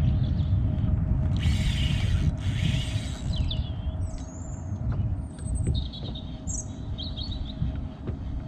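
Small birds chirping a few times, with short high calls that bend in pitch, over a steady low rumble. Two brief bursts of hiss come about a second and a half and two and a half seconds in.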